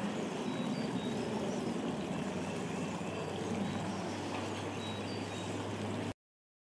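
Steady rushing of a shallow stream running over rocks, with a few faint short chirps above it; the sound cuts off suddenly about six seconds in.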